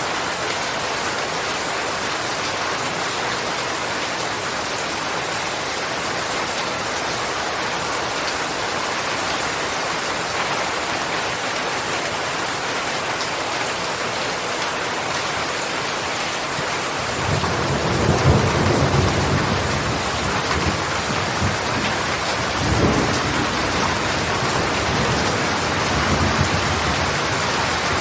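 Steady rain falling throughout. About two-thirds of the way in, a low rumble of thunder rolls in and lasts several seconds, swelling again a few seconds later.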